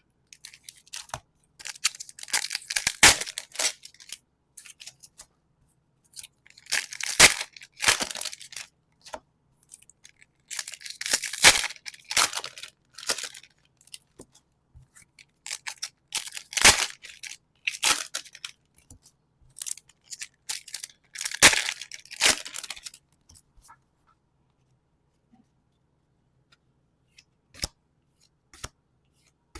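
Foil Pokémon card booster packs being torn open, five tearing and crinkling bursts of about two to three seconds each, spaced a few seconds apart.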